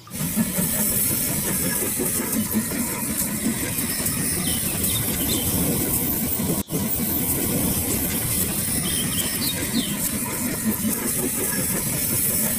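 Reading & Northern No. 425, a 4-6-2 steam locomotive, running past with a train: a steady rush of exhaust and steam hiss. The sound cuts out for an instant a little past halfway.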